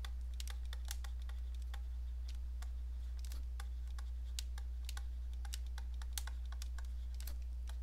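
Pen stylus tapping and dragging on a tablet screen while handwriting: a scatter of light, irregular clicks, over a steady low electrical hum.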